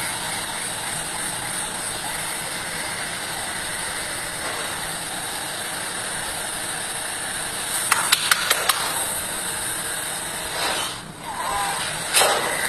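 Steady hiss-like background noise, with a quick run of sharp clicks about eight seconds in and a brief louder sound near the end.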